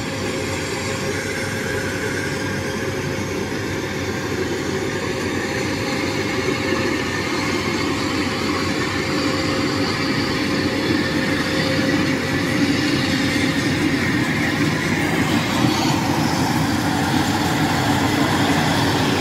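Tracked rice combine harvester running and cutting rice: a steady engine and machinery clatter with a steady whine, growing louder as the machine draws near.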